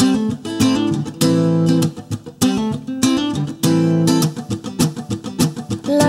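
Background music: strummed guitar chords in a steady rhythm, an instrumental passage with no singing.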